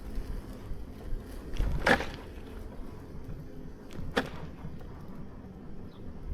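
Bicycle rolling over a snowy street: a steady low rumble from the tyres, with two short scraping bursts about two seconds apart.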